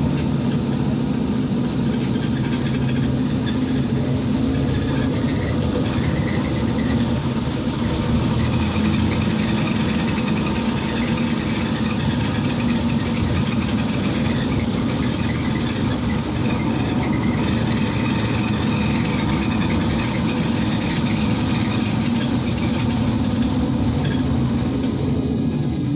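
Steady interior running noise of a BKM 321 trolleybus under way: a constant low drone from the electric drive mixed with even road and tyre noise.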